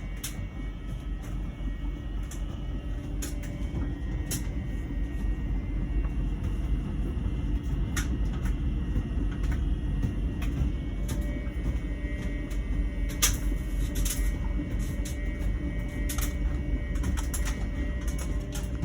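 LG heat pump ventless dryer running mid-cycle with a steady low hum and a buzzing drone, plus scattered sharp clicks. A second tone joins the drone about twelve seconds in. The buzzing is new on a year-old dryer, and its cause is unknown.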